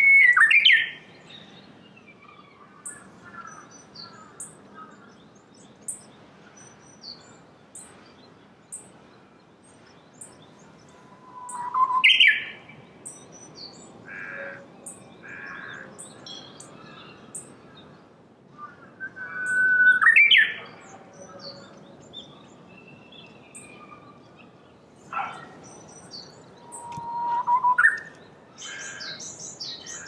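Japanese bush warbler (uguisu) singing its hō-hokekyo song four times: each a long held whistle ending in a quick rising flourish. Thin, very high chirps from other small birds come between the songs.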